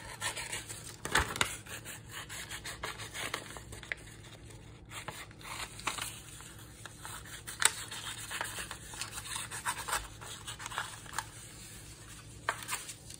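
Scissors snipping through crayon-coloured white paper, with the paper rustling and sliding as the cut pieces are handled: short, scattered snips and rustles.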